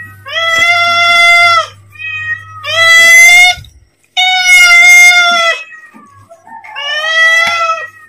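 Domestic cat meowing to ask for food: four long, loud meows about a second or two apart, with a shorter, softer one between the first two.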